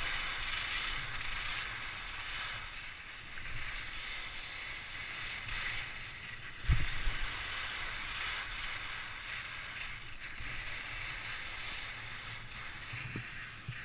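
Skis hissing and scraping over groomed piste snow, swelling and easing every couple of seconds through the turns, with wind rumbling on the microphone. A low thump about seven seconds in.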